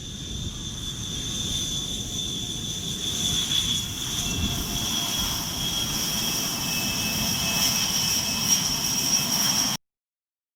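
Jet aircraft engines running: a broad rush with a steady high-pitched whine on top, growing louder over the first several seconds. It cuts off abruptly near the end.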